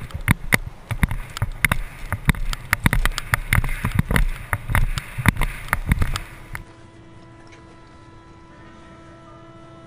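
Longboard rolling fast downhill on asphalt, heard through an action camera's microphone: wheel roar with low wind rumble and frequent sharp clacks from bumps in the road. About two-thirds of the way through it cuts off abruptly to faint, steady held tones of background music.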